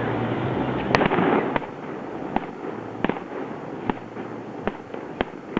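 Aerial fireworks bursting: a loud bang about a second in with a rumbling tail, then a string of single sharp cracks, each under a second apart.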